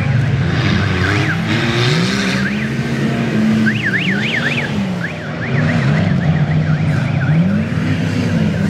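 Off-road race vehicle's engine revving up and down several times as it drives the rough dirt course, with a high warbling tone over it for a while around the middle.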